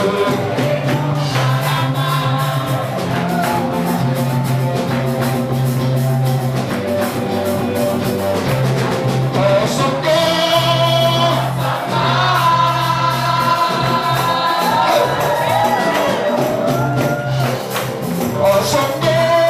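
Gospel praise music: singers over a band with a steady bass line and percussion.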